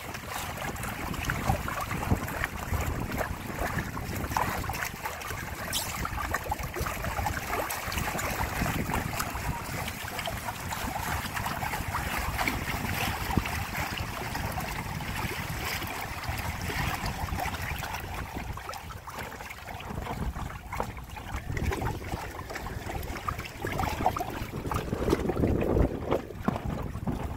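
Water rushing and splashing along the hulls of a Windrider 17 trimaran under sail, with wind buffeting the microphone; briefly louder near the end.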